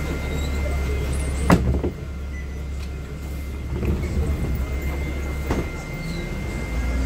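Inside a NovaBus LFS city bus: a steady low rumble from the bus running at low speed, with a thin steady high whine. There is a sharp clunk about one and a half seconds in and two lighter knocks later on.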